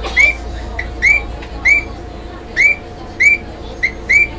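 A bird calling: about eight short, clear chirps, each rising then dipping in pitch, at uneven intervals over a steady low hum.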